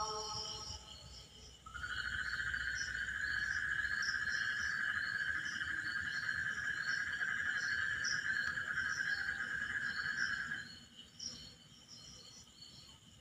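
Night-time insect chorus: crickets chirping in short repeated pulses. A loud, steady, even-pitched trill joins about two seconds in and stops about eleven seconds in.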